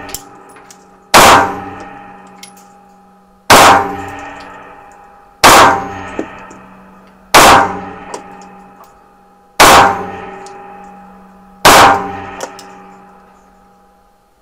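Compensated SIG Sauer P228 9×19 mm pistol fired six times in slow aimed fire, about two seconds between shots, with frangible rounds. Each shot is followed by a long ringing echo from the indoor range.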